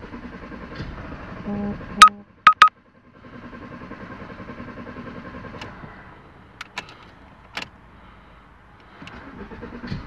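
Ford Mondeo diesel engine being cranked on the starter and struggling to fire, starved of fuel by a blocked feed line so that rail pressure is slow to build. Loud sharp clicks come about two seconds in, the cranking sound dies away for a few seconds, then builds again near the end as the engine catches.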